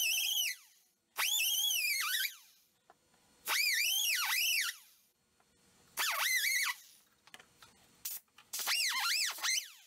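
Rusted nut squealing as it is turned with a socket wrench: five separate squeals about a second each, each rising and falling in pitch with every stroke of the wrench.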